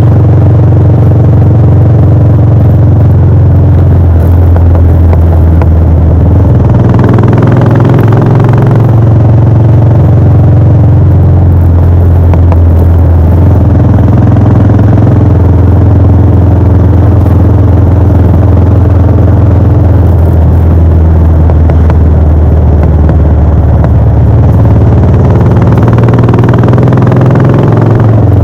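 Royal Enfield Bullet 500's single-cylinder engine heard through its exhaust while riding, a steady running note whose pitch shifts down and back up a few times as the throttle and gears change.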